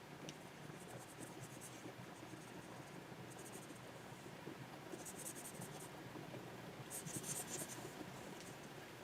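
Stylus nib scratching across a Wacom 24 Pro tablet's surface in four short bursts of quick back-and-forth strokes, the loudest about seven seconds in, over a faint steady room hiss.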